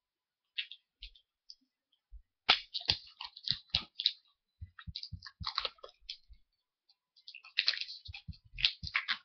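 Plastic wrapping on a small iPad USB power adapter crinkling and clicking as fingers pick at it to open it: irregular short crackles and clicks, starting about two and a half seconds in.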